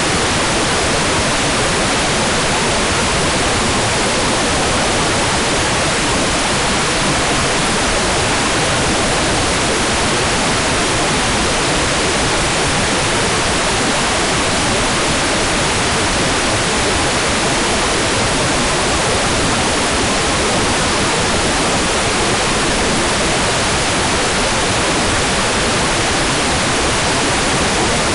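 Hair dryer blowing steadily: an even, unchanging rushing noise with no change in level.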